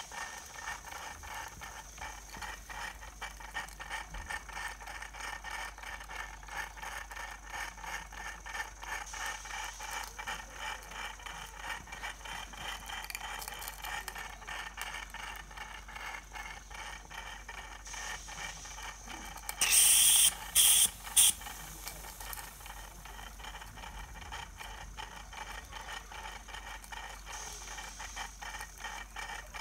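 Cotswold Heritage Cirrus model steam beam engine running on live steam, with rapid, even exhaust beats and light mechanical clatter. About twenty seconds in, a small steam whistle gives three short, shrill blasts, the loudest sound.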